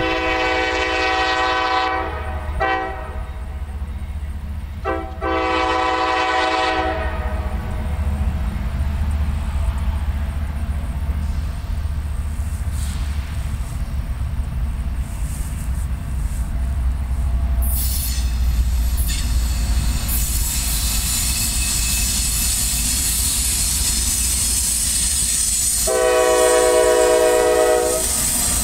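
CSX ES40DC diesel locomotive 5295 sounding its air horn for a grade crossing: a long blast, a short toot and another long blast, then one more long blast near the end. A deep engine rumble runs throughout. From about two-thirds of the way through, the rushing clatter of wheels and double-stack container cars passing close takes over.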